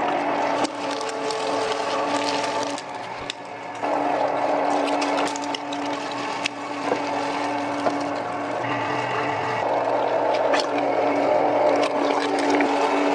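Electric commercial meat grinder running, a steady motor hum with the grinding noise of meat going through, dipping briefly about three seconds in, with scattered small clicks and knocks.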